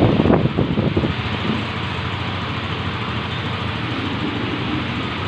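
Yamaha Mio 125 scooter's single-cylinder four-stroke engine running steadily at idle after a top overhaul, with a few uneven louder bursts in the first second.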